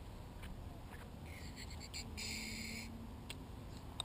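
A bird calling, starting a little after a second in and lasting about a second and a half, over a low wind rumble on the microphone, with a few faint clicks.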